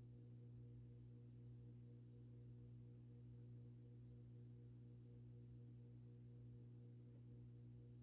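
Near silence with a steady low hum, unchanging throughout, while the switched-off ceiling fan coasts down in its spindown.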